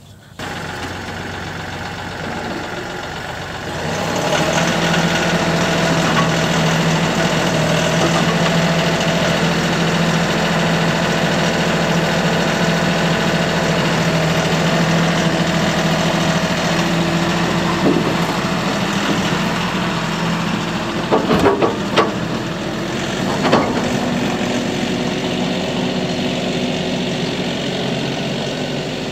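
Kioti compact tractor's diesel engine running, with engine speed raised a few seconds in as the tractor drives off a tri-axle equipment trailer. A few sharp metal clunks come about three-quarters of the way through as it rolls down the trailer ramps.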